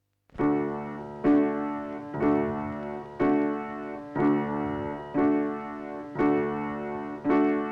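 Music: a piano-like keyboard striking the same chord about once a second, each chord ringing on and fading before the next. It starts after a brief silence.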